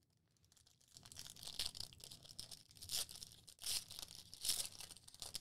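The wrapper of a Select basketball card pack being torn open and crinkled by hand, starting about a second in, with several sharper rips along the way.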